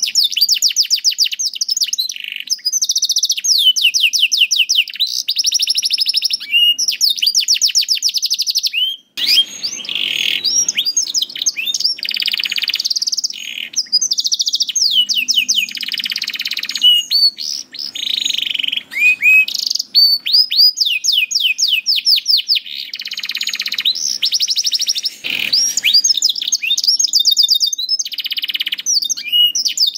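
Domestic canary in full song, a long continuous run of fast trills and rapidly repeated chirping notes, with a brief pause about nine seconds in.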